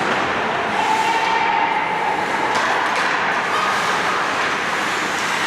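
Steady ice rink din of skates scraping on ice, with a few sharp stick or puck clicks about halfway through.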